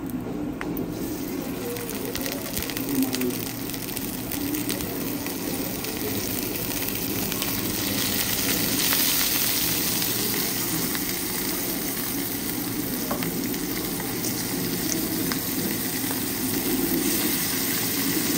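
Two salted mackerel sizzling as they fry in hot oil in a pan; the sizzle swells and grows louder after the first several seconds.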